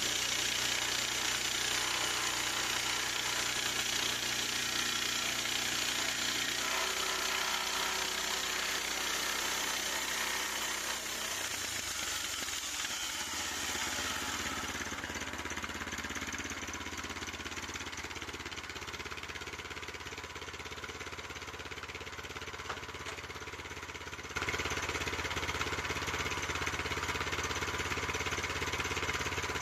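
Gasoline engine of a Harbor Freight portable bandsaw sawmill running steadily. Its note shifts a few times, and it steps up in loudness late on.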